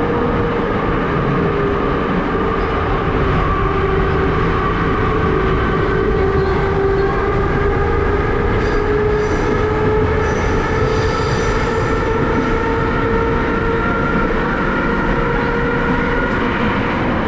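Ezh3-series subway car running through a tunnel, heard from inside the car: a steady loud rumble of wheels on the rails under the whine of the traction motors, whose pitch dips a little and then rises again.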